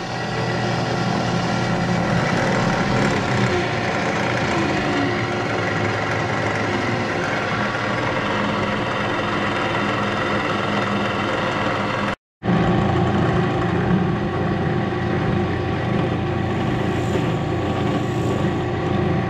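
WEN 4212T 10-inch variable-speed drill press running with a steady motor hum, its pitch sliding up in the first few seconds as the speed is turned up toward 2200 RPM. The sound cuts out briefly about twelve seconds in, then the press keeps running a little rougher.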